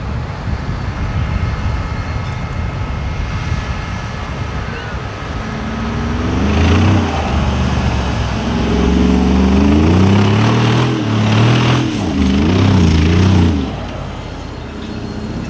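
Mercedes-AMG G63 6x6's twin-turbo V8 driving through soft beach sand, first a low rumble with wind on the microphone, then about five seconds in the engine note comes up loud and rises and falls repeatedly as the throttle is worked, fading back to a rumble near the end.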